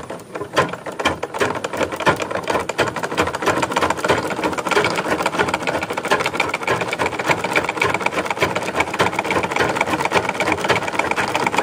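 Treadle-driven domestic sewing machine stitching through cloth: a fast, even clatter of needle and shuttle strokes that picks up speed and loudness a few seconds in. It is a test seam after the shuttle has been reset, and the stitches are forming properly.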